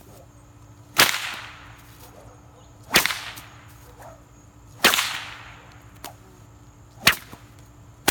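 Cowhide Australian stock whip with a four-plait thong being cracked overhead: four loud, sharp cracks about two seconds apart, the first three trailing off briefly, with a fainter snap between the third and fourth.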